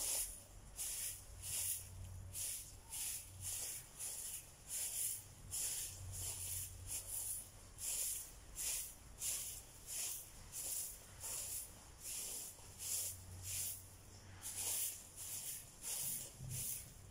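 A broom sweeping dirt ground, quick even swishes at about two strokes a second.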